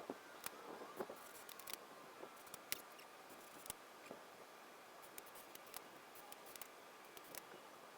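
Faint, irregular clicks and snaps of cleco pliers setting clecos into aluminium aircraft parts, about two a second at times.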